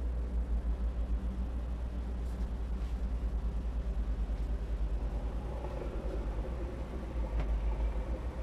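Steady low rumble with a quick flutter, the handling and walking noise of a handheld camera's microphone being carried from room to room, with a few faint clicks.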